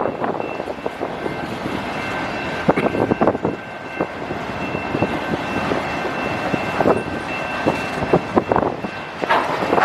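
Freight train of autorack cars rolling past: a steady rumble and rush of wheels on rail with irregular clicks and knocks from wheels crossing rail joints, and a faint steady high whine.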